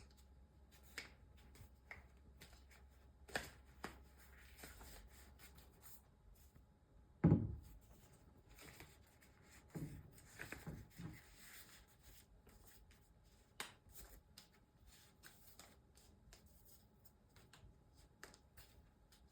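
Hands fitting a camouflage lens cover onto a camera lens: quiet rustling of the cover and scattered small clicks and taps, with a dull knock about seven seconds in, the loudest sound.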